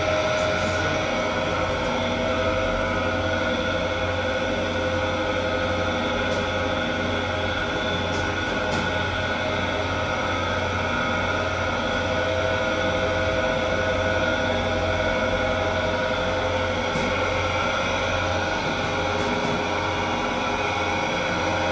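Electric dough kneading machine running steadily as its arm works flour and water into dough in a steel bowl: a steady motor hum with several held tones that do not change.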